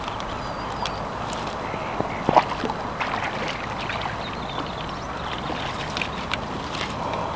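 Steady hiss of rain with scattered small splashes from a hooked bass thrashing at the surface close to the bank, the loudest about two and a half seconds in.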